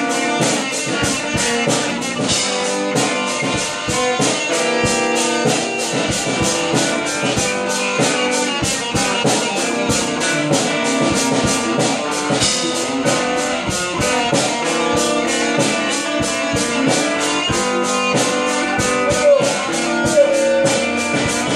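A live rock band playing an instrumental passage: electric guitars over a drum kit keeping a steady beat.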